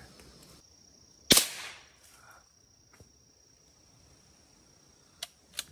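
A single rifle shot about a second in, sharp and loud with a short echo trailing off, fired at a squirrel up a tree.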